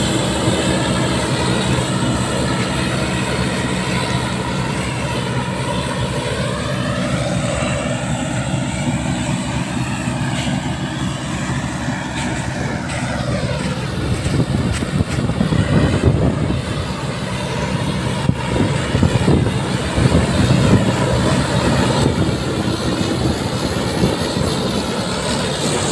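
John Deere combine harvester running while cutting and threshing dry soybeans: a steady engine drone mixed with the noise of the threshing machinery and crop. It gets louder and rougher between about 14 and 21 seconds in.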